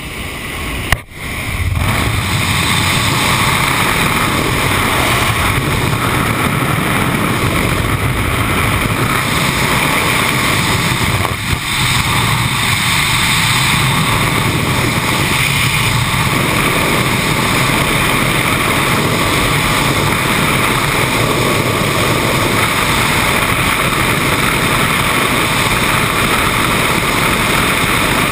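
Steady, loud rush of freefall wind blasting a helmet-mounted GoPro's microphone. The first second, in the open door of the jump plane, is quieter; about a second in there is a sudden break as the jumper exits, and the wind noise then settles in.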